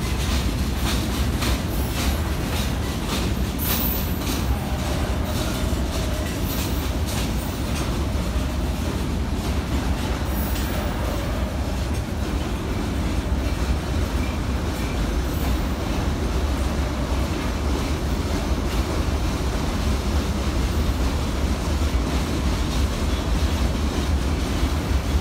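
Freight train wagons rolling past in a steady low rumble, with wheels clicking over rail joints, most plainly in the first several seconds.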